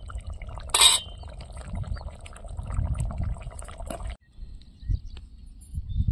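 A sharp metal clink about a second in, from a utensil against a steel cooking pan, over a low rumbling noise. The sound cuts off abruptly about four seconds in.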